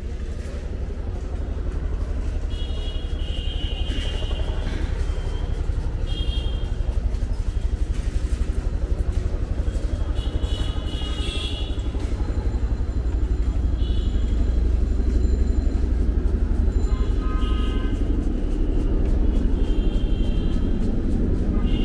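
Knife chopping green chillies on a plastic cutting board, a fast run of steady knocks, over a continuous low rumble of street traffic. Short high-pitched tones come and go several times.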